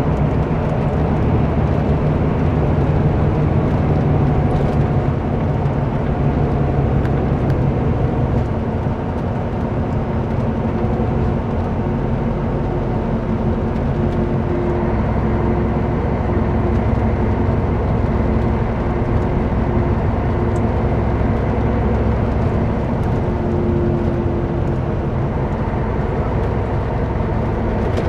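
Scania K124 coach's diesel engine running under way, heard from inside the passenger cabin together with steady road and tyre noise. The engine note changes about eight seconds in and runs lower from there.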